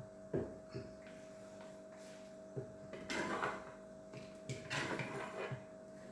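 A spoon scraping and knocking against a container as pounded palm fruit is scooped into a bowl, in irregular strokes with a longer scrape about three seconds in and a run of knocks near the end.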